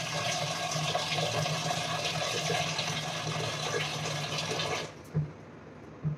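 Water running from a wall-mounted water purifier's tap into a vessel, cutting off about five seconds in, followed by a couple of light knocks.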